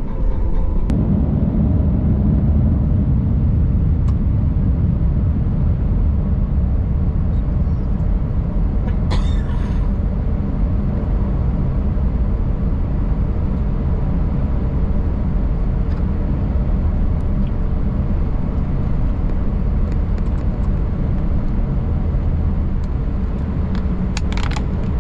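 Steady low rumble in the cabin of an Airbus A321 taxiing on the ground: engine noise at taxi power mixed with the wheels rolling over the pavement. Two brief sharper noises cut through, about nine seconds in and near the end.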